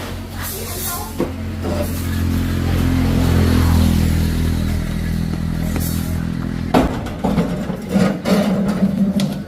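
Small motorcycle engine running, rising a little in speed and then easing, before it cuts off about two-thirds of the way through; a few knocks and clatter follow.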